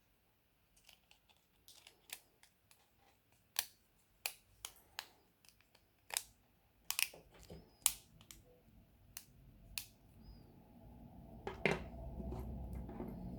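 Sharp clicks and taps of small tools and phone parts being handled during smartphone reassembly, irregular and spread through, about a dozen of them loud. From about ten seconds in a low hum rises steadily under them.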